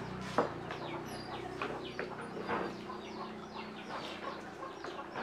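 Chickens clucking with short, repeated high calls, mixed with a few sharp clinks of spoons and chopsticks against bowls.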